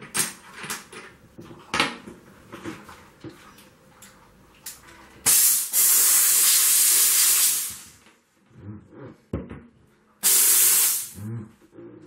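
Sauber Brilliance steam cleaner letting out two jets of steam: a long hiss of about two and a half seconds about five seconds in, then a shorter one near the end. Light clicks and knocks from handling the cleaner come before the first jet.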